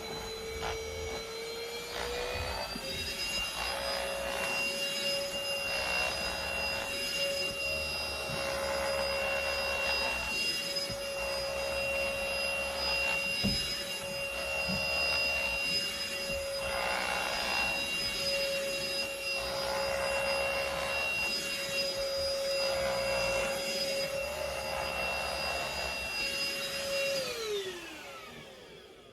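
Cordless handheld mattress vacuum (dust mite vacuum) running with a steady high motor whine that steps up in pitch about two seconds in. Soft swishes recur every second or two as it is pushed over bedding. Near the end the motor is switched off and winds down with a falling whine.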